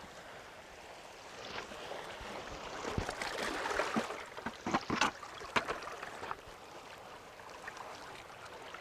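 Seawater sloshing and splashing among rocks, swelling in the middle and easing off near the end, with a few sharp knocks and clicks mixed in.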